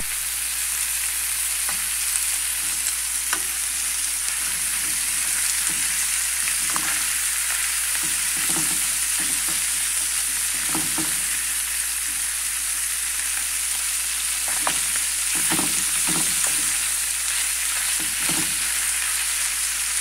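Diced pork fatback (toicinho) frying in a metal pan, sizzling steadily as its fat renders out. A spoon stirs the pieces, scraping against the pan now and then.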